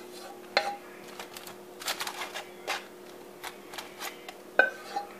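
Scattered light crinkles and clicks of aluminium foil and a utensil being handled over the food in a foil-lined bowl, the loudest near the end, over a faint steady hum.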